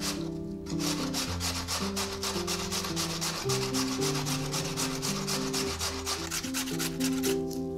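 Raw potato being grated on a stainless steel box grater: quick, regular rasping strokes that begin under a second in and stop shortly before the end, over soft background music.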